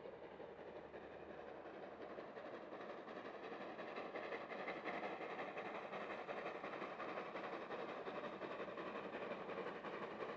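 Distant steam locomotive and its train running, a steady rumble that grows louder over the first few seconds as it approaches, then holds.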